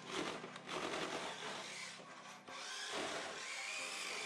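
Electric drive motor and gears of a 1/10-scale Radio Shack Acura RSX remote-control car running as it drives over a tile floor: a rough grinding rattle with a faint motor whine that rises in pitch near the end.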